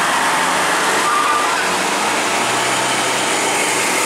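Steady road traffic noise from a tour bus and cars running past at close range: an even rush of engine and tyre noise with a low engine hum underneath.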